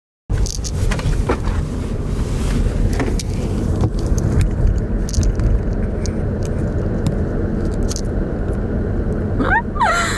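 Steady road and engine rumble heard inside a moving vehicle's cabin, starting suddenly a moment in, with a few faint clicks.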